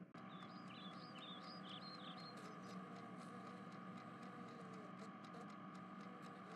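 Faint background ambience: a steady low hum, with a run of quick high chirps in the first two and a half seconds and a few faint ticks.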